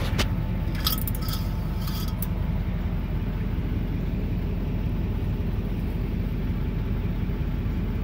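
Service truck engine idling steadily, left running to jump-charge the scraper's dead batteries. A few light metallic clinks come about one to two seconds in as the engine oil dipstick is drawn out of its tube.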